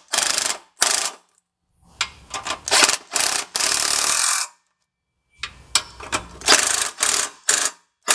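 Cordless impact driver running in short bursts of rattling, hammering, as it tightens the nut on the downpipe's rear exhaust clamp. There is one longer run about three and a half seconds in, and quick bursts again near the end.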